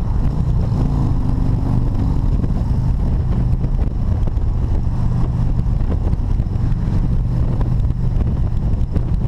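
Harley-Davidson touring motorcycle's V-twin engine running steadily at motorway cruising speed, under a heavy rush of wind noise.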